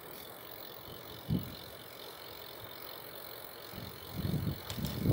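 Bicycle rolling along a road with a steady hiss of wind and tyres, a single knock about a second in, and a run of rattling knocks from the bike near the end.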